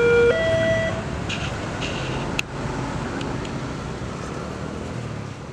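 Electronic two-tone level-crossing warning alarm, its two tones alternating, cuts off about a second in. Steady road traffic noise follows, with a sharp click partway through.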